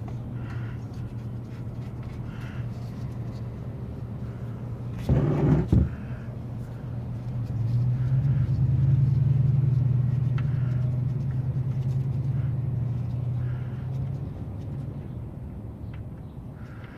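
A motor vehicle's engine running with a steady low hum. It swells louder for about seven seconds in the middle, then fades. A short, loud clatter sounds about five seconds in.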